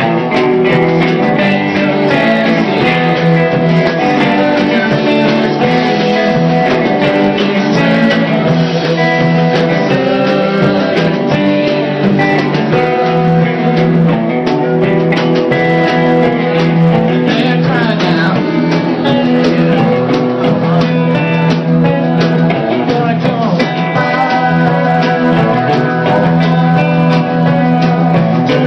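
A rock band playing live, with guitar to the fore.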